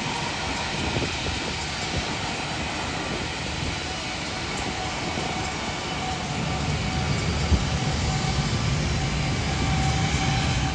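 Jet airliner engines running, a steady rushing noise with a faint whine in it, growing a little louder in the second half.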